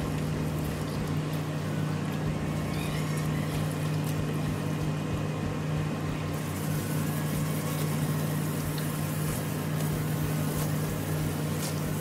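A motor running with a steady low hum under a constant rush of water, typical of a pump feeding a water hose.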